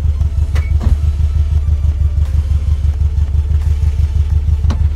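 Tuned air-cooled VW Beetle 2007cc flat-four with Weber 48 carburettors idling with a steady low pulse. Light clicks come about a second in and again near the end.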